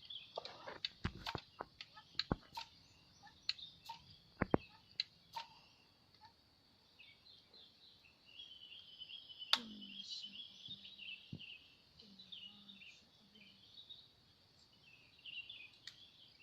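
Birds chirping steadily high up, with light clicks and taps over the first few seconds. About nine and a half seconds in comes a single sharp air-rifle shot, the loudest sound here.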